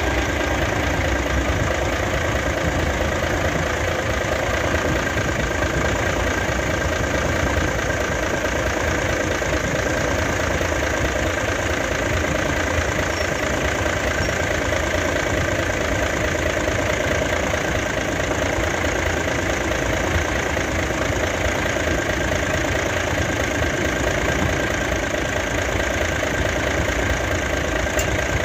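Nissan FE6 inline-six diesel truck engine idling steadily. The engine has heavy blow-by (back compression), and its running sound is being checked for the noise of a piston ring fault.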